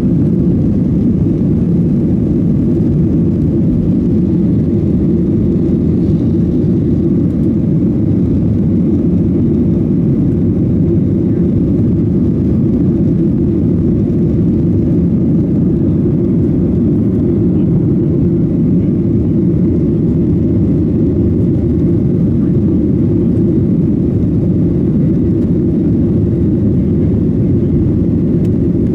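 Boeing 737-800's CFM56-7B turbofans at takeoff thrust and the rush of air past the fuselage, heard from inside the cabin over the wing during takeoff and climb-out: a loud, steady low rumble.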